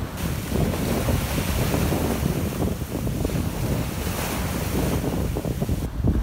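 Sea surf breaking and washing up a shingle beach, with wind buffeting the microphone.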